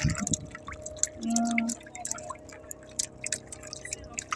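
Water dripping and splashing in small scattered ticks as a fishing handline is pulled up out of the sea beside an outrigger boat.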